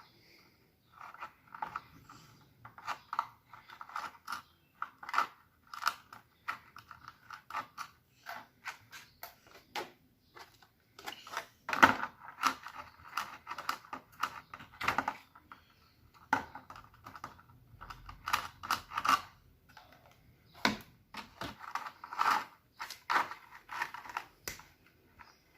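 Slime being squished and mixed by hand, making rapid, irregular sticky clicks and pops in bursts.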